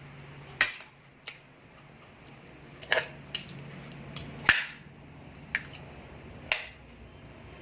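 Close-up eating sounds: about eight sharp clicks and clacks at uneven intervals, the loudest about halfway through, over a low steady hum.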